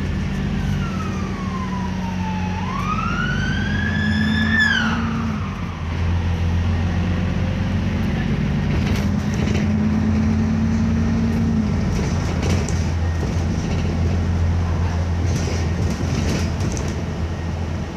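Diesel engine of an Alexander Dennis Enviro400 double-decker bus running on the move, heard inside the passenger cabin as a steady low drone that changes pitch as the bus pulls and eases off. In the first five seconds a high whine falls and then rises again before cutting away.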